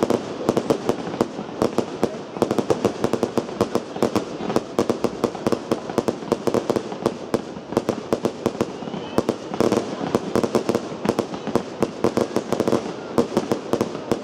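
Aerial fireworks going off in a rapid, unbroken string of sharp bangs and crackles, several a second.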